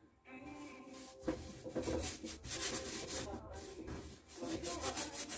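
Paintbrush scrubbing acrylic paint onto a stretched canvas, a rapid run of rough rubbing strokes beginning about a second in.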